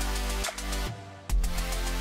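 Electronic music with a heavy, steady bass line and a regular beat. The bass drops out for a moment about a second in and returns with a hit.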